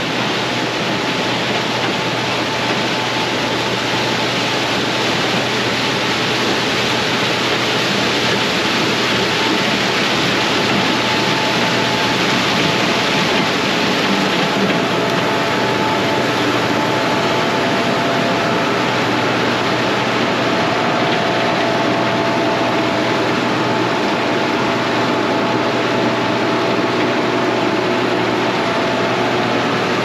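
Case IH 2388 combine harvester running steadily while harvesting corn: a continuous mechanical rush with a faint wavering whine over it.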